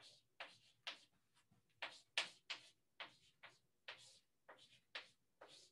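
Chalk writing on a blackboard: a quick, irregular run of short sharp taps and scratches, about two or three a second, as the chalk strikes and drags over the slate.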